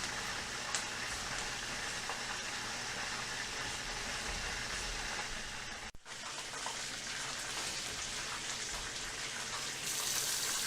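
Steady hiss of food cooking in a pot on the stove, with a faint low hum underneath; the sound drops out for a moment about six seconds in.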